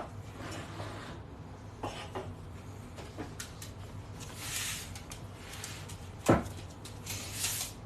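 Light handling noises: scattered small clicks and rustles, with one louder knock about six seconds in.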